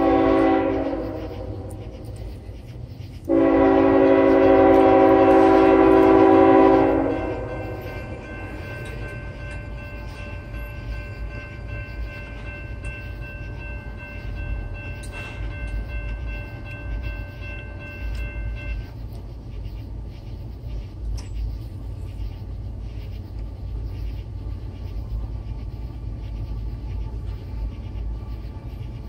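Norfolk Southern freight locomotive's air horn sounding for a grade crossing: a short blast at the start, then a longer blast of about three and a half seconds that fades and echoes away. Behind it, the crossing's warning bell rings until about two-thirds of the way through, while the low rumble of the approaching train runs throughout.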